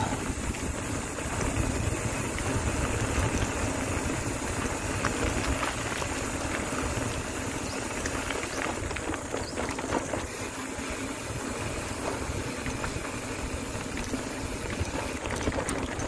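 Mountain bike rolling along a dirt forest trail: steady low wind rumble on the microphone over the sound of the tyres on the ground, with a few small clicks and rattles.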